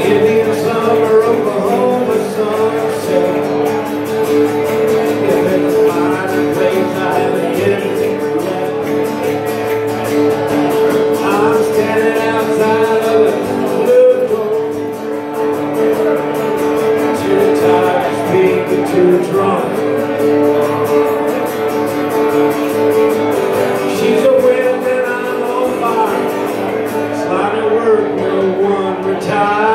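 A man singing into a microphone while strumming an acoustic guitar, a live solo vocal-and-guitar song.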